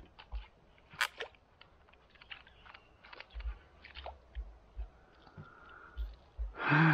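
Scattered small clicks and knocks of handling, irregular and quiet, with a few low thumps, then a man's loud sigh or groan near the end.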